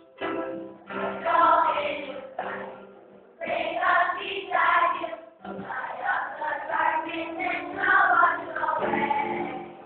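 Children singing a song with musical accompaniment, in phrases with short breaks between them.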